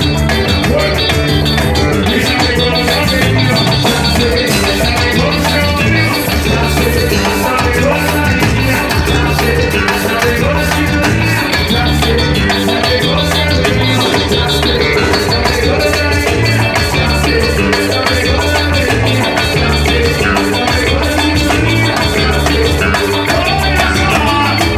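A live band playing loud through a PA, with congas and other percussion over a steady, repeating bass line.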